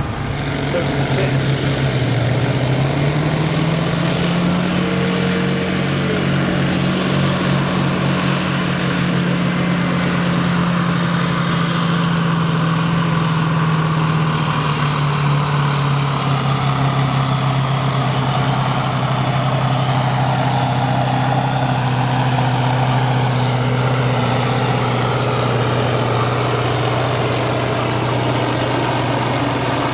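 Kirovets K-700 tractor's heavy diesel engine running hard under load while pulling a weight sled. Its pitch climbs over the first few seconds, holds steady, then settles a little lower about halfway through.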